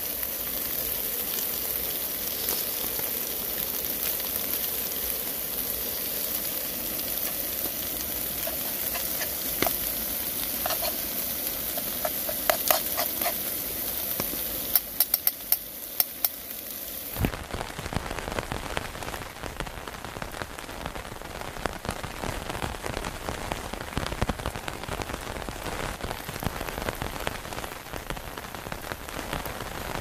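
Chicken, steak and noodles sizzling in a frying pan on a gas camping stove, with a fork clicking and scraping in the pan shortly before a sudden cut. After the cut, about 17 seconds in, rain falls steadily on the nylon tarp overhead with many small drop taps.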